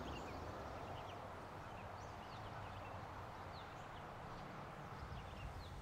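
Faint, steady background noise with scattered short, high chirps, easing down slightly in the first couple of seconds.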